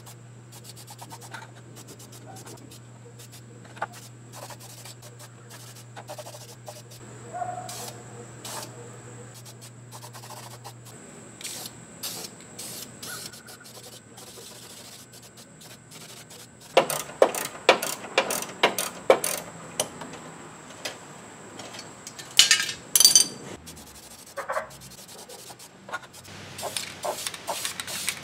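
A paper towel rubbing and wiping over the car's metal front frame, with scattered scrapes and clicks and short hisses from an aerosol can. The strokes get louder and busier over the second half.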